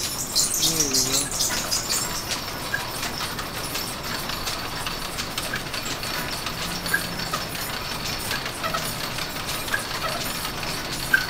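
Line-shaft-driven New Haven lathe being started by shifting its flat belt onto the cone pulley. A louder rushing burst comes in the first second or so, then the belt and pulleys keep running with a steady whir and light irregular ticks.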